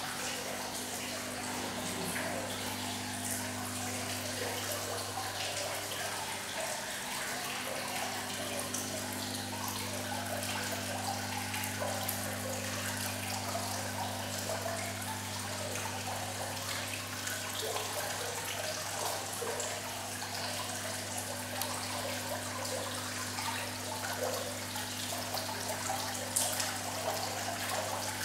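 Water thread curtain fountain running: water trickling down the vertical threads and pattering into its stainless-steel trough in a steady stream, over a steady low hum.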